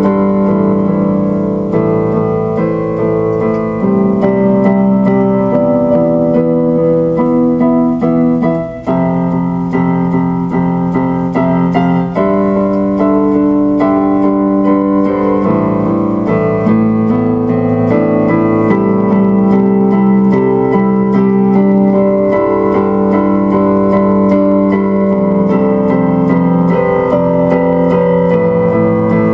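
Piano music played on an electronic keyboard: slow sustained chords and melody notes, changing every second or two, with a brief dip in level about nine seconds in.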